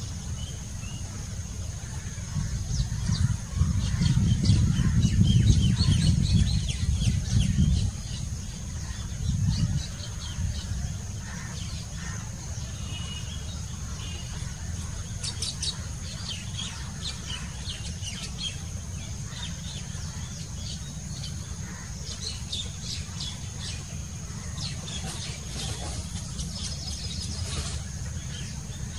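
Baya weavers chirping: many short, quick high chirps, in clusters. Underneath are a steady thin high whine and a low rumble that swells for a few seconds, then again briefly.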